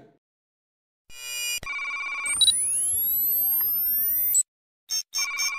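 Electronic sound effects of an animated loading screen: after a moment of silence, a quick run of beeps, then several rising, sweeping tones that cut off abruptly, and beeps again near the end.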